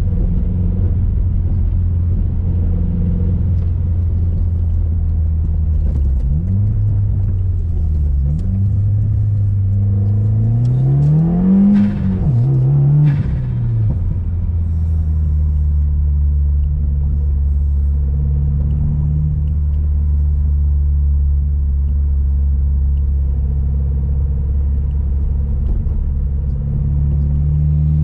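2018 Subaru WRX's turbocharged flat-four engine running while the car is driven: a steady low drone, then from about six seconds in the revs rise and drop several times, climbing highest around twelve seconds in, before settling back to a steady cruise.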